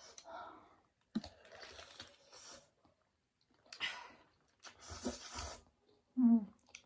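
A person eating noodles up close: chewing and mouth noises in four or five short bursts, with a short voiced hum near the end.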